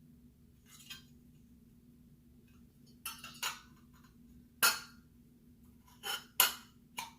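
A glass bottle and small metal parts being handled, clinking and knocking against each other about six times, with the loudest clinks about the middle and near the end.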